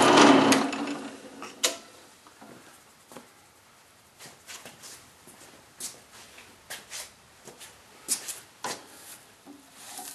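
A drill press running that dies away within the first second. It is followed by scattered light metallic clicks and scrapes as curly steel drill chips are pushed and swept off the drilled plate.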